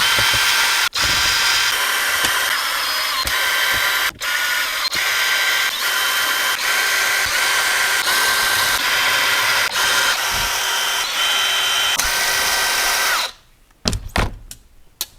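Power drill running in long stretches with a steady motor whine, backing out the screws that hold an RC car's battery tray. It stops briefly about a second in and again about four seconds in, then stops for good near the end, leaving a few light handling clicks.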